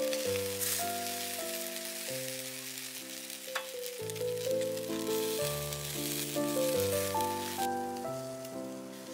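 Chicken wings sizzling on a wire grill over charcoal, the sizzle cutting off sharply near the end, with instrumental background music playing over it. One sharp click about three and a half seconds in.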